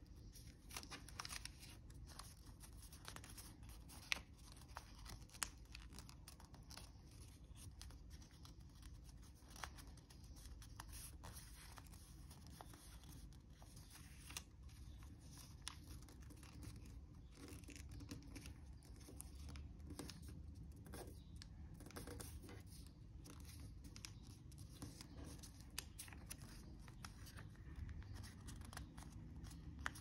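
A sheet of origami paper being folded and creased by hand: faint, scattered crinkles and sharp little crackles over a low steady background hum.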